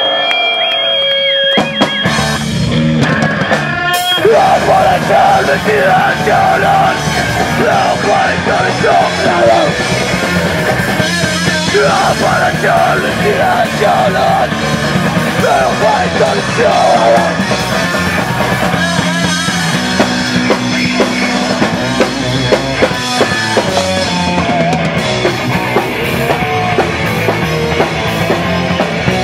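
Hardcore punk band playing live and loud: distorted electric guitars, bass and a drum kit. A single held note rings at the start, then the full band comes in about two seconds in.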